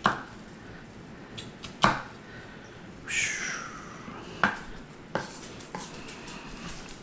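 A chef's knife cutting an onion on an end-grain wooden cutting board, giving separate sharp knocks at uneven intervals as the blade strikes the wood. About three seconds in there is a short high squeak that falls in pitch.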